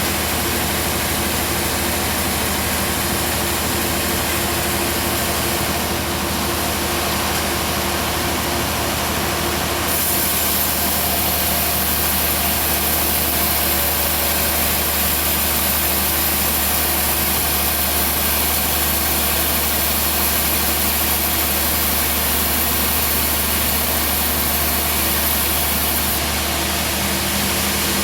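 Band sawmill's engine running steadily with a constant drone; a high hiss grows stronger about ten seconds in and eases back near the end.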